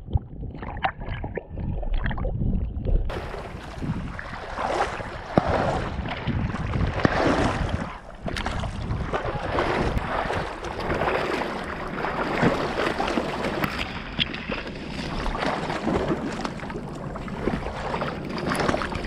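Water splashing and sloshing as a retriever swims and wades through a pond, heard close up from a camera harnessed on its back. The sound is muffled for the first three seconds, then turns brighter.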